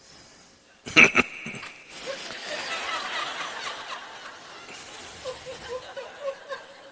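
Audience laughter that swells about two seconds in and slowly dies away, with scattered chuckles near the end. About a second in, two sharp knocks close together, the loudest sound.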